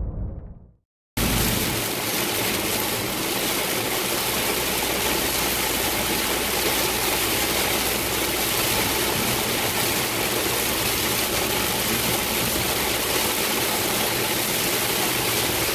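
Heavy rain pounding on a moving car, with tyre spray and road noise from wet, flooded pavement, heard from inside the cabin: a dense, steady hiss over a low rumble. It cuts in abruptly about a second in, after a moment of dead silence.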